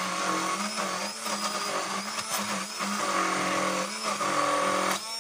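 Handheld electric mixer running in a plastic bowl, beating butter, sugar and egg into a creamy cookie batter. Its steady motor hum wavers slightly as it is moved through the mix, and it stops near the end.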